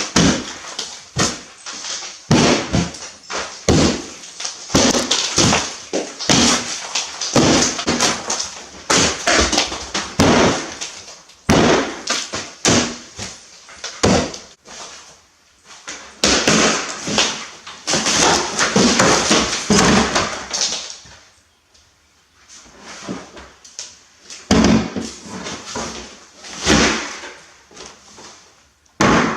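A run of loud bangs, slams and crashing noises, many in quick succession, with a quieter stretch about two-thirds of the way through.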